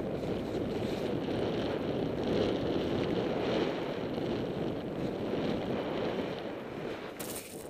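Skis sliding over packed, chopped snow with wind rushing over the microphone, a steady rushing noise. Near the end a sudden harsher, hissier noise breaks in.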